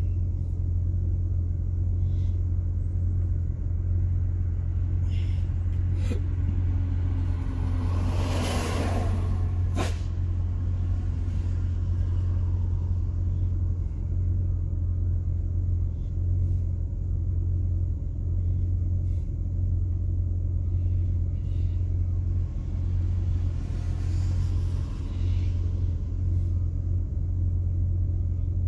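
Car cabin drone while driving: a steady low engine and road rumble heard from inside the car. A louder rush swells and fades about eight seconds in, and a fainter one comes later.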